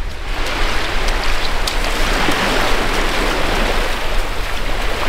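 Wind rushing over the microphone on an open beach: a loud, steady hiss with a low rumble beneath it.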